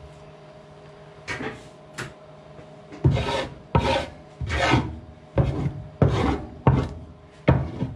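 A knife blade scraped along a wet wooden cutting board, clearing off conger eel scraps. Two light strokes come first, then about six hard, rasping strokes in quick succession.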